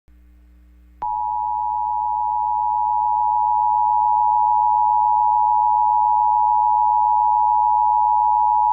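Emergency Alert System attention tone: a loud, steady electronic tone that starts suddenly about a second in and holds at one pitch, over a faint mains hum. It is the alarm that comes before the voice message of a new severe weather warning.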